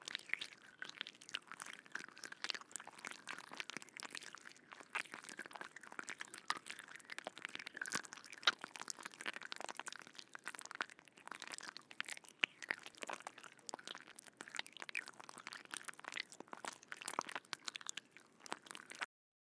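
Insects making a dense, irregular crackling and clicking, a rapid run of tiny clicks that stops abruptly near the end.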